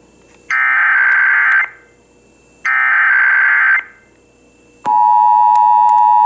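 Emergency Alert System SAME header: the last two of its three digital data bursts, each a harsh screech about a second long with a second of quiet between them. About five seconds in, the steady two-tone attention signal starts. This marks the start of an EAS Required Monthly Test activation.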